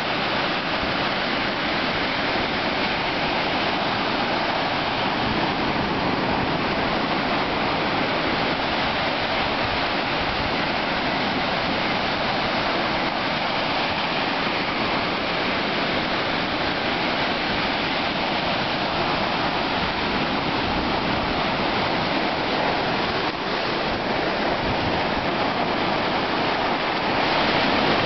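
Ocean surf breaking and washing through the shallows close to the microphone: a steady, dense rush of water that gets a little louder near the end.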